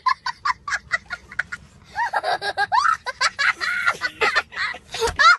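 A young boy laughing hysterically: a rapid run of short, cackling bursts, then from about two seconds in, longer high squealing laughs that slide up and down in pitch.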